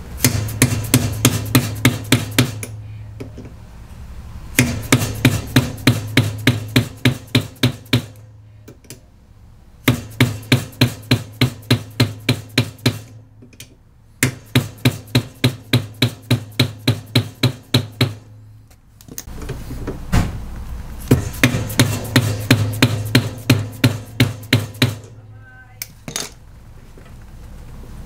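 A rubber mallet tapping rapidly on a socket extension to drive a washer motor-coupling part flush, in five runs of even strikes about five or six a second, with short pauses between runs.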